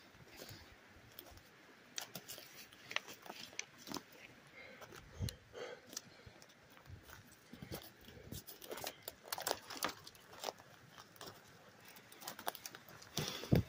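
Footsteps crunching through forest undergrowth, with twigs and brush crackling and snapping in an irregular run, busiest past the middle and with a sharper snap near the end.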